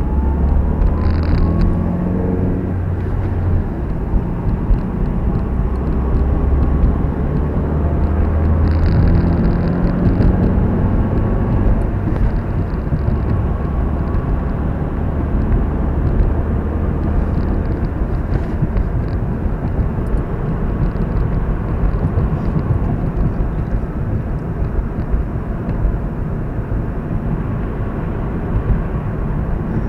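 Car driving, heard from inside the cabin: steady road and engine noise, with the engine pitch rising as the car speeds up, once near the start and again around nine to twelve seconds in.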